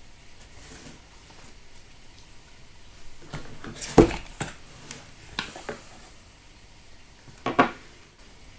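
Handling noise from unpacking an intercom kit: a cardboard box and small plastic parts knocked and set down on a table. There is a sharp knock about halfway through, a few lighter clicks after it, and another knock near the end.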